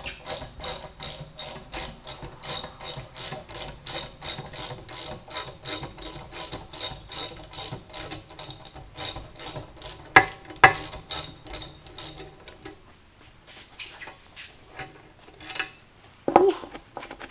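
Ratchet wrench clicking in an even run, about four clicks a second, as it is worked on a rusted turbocharger-to-exhaust-manifold bolt that is still too tight. Two sharp metal knocks come about ten seconds in, and another clank comes near the end.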